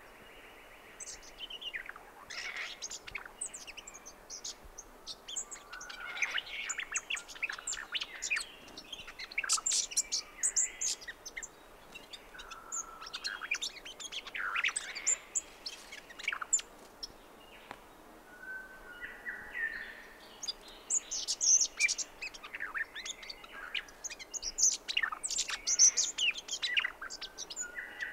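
Brown thornbill singing: repeated bursts of rapid, high, twittering notes separated by short pauses, with a few longer, lower held notes and other birds calling in the background.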